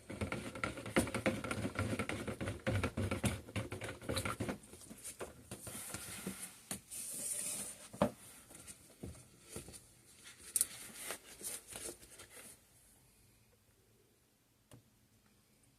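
Soap-making utensils being handled while soap batter is split between containers: a string of light clicks, taps and scraping, thinning out and stopping about three-quarters of the way through.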